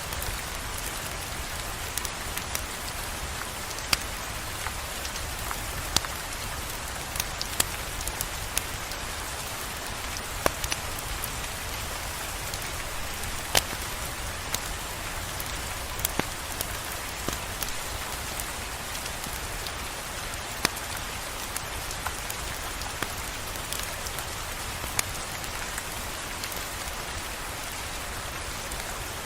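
Steady rain, an even hiss, with scattered sharp clicks and pops every second or few.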